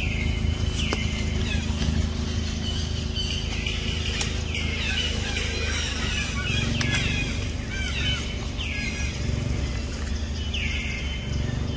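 Forest birds calling: short, high calls that fall in pitch, repeated about once a second, with a busier patch of chirping in the middle. Under them runs a steady low drone.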